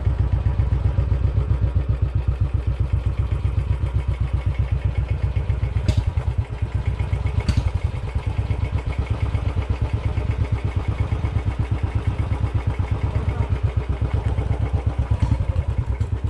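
Motorcycle engine running steadily under way, with an even, rapid low pulse. Two brief sharp clicks come about six and seven and a half seconds in.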